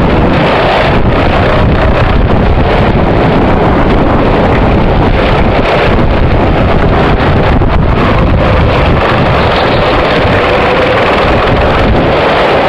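Go-kart running at speed, recorded onboard: a steady engine drone under heavy wind buffeting on the microphone, loud and unbroken.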